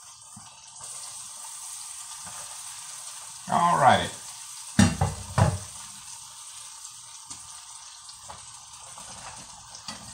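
Battered cauliflower florets deep-frying in a pot of hot oil, a steady sizzle. A few sharp knocks come about halfway through.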